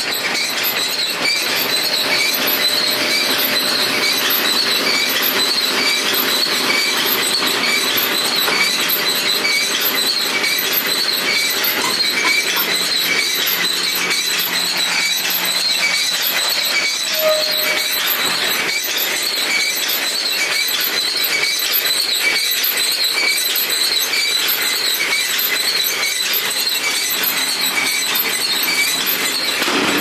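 John Deere 567 round baler running, its belts, rollers and drive chains turning with a steady mechanical clatter and a high-pitched tick repeating at an even pace.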